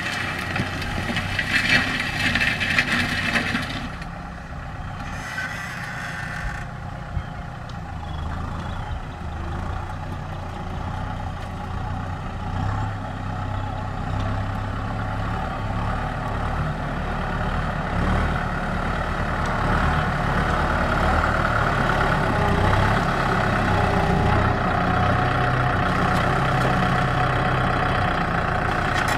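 Kubota M6040SU tractor's four-cylinder diesel engine running steadily under load while it pulls a disc harrow through dry soil. The sound grows louder over the second half.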